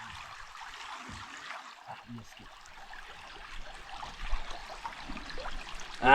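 Shallow river water running over rocks: a steady rushing hiss, with a few faint low knocks.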